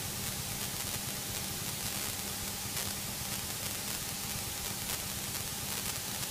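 Steady hiss and static of a cockpit radio and intercom audio feed, with a faint steady hum underneath.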